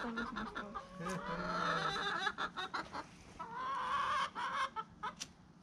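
A flock of chickens clucking in their run, with two drawn-out calls: one about a second in and another around four seconds in.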